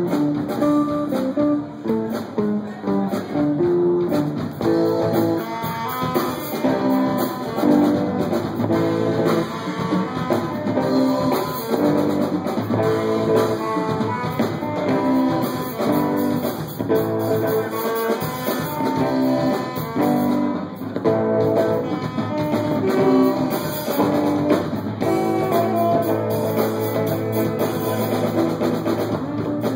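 Live rock band playing, with guitar and drum kit, loud and unbroken.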